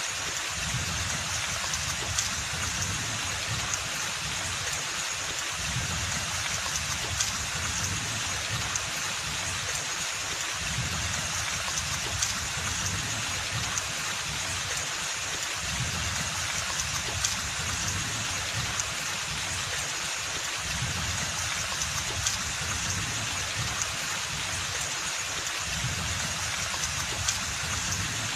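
Steady rain falling on forest foliage, an even hiss with scattered individual drops ticking through it.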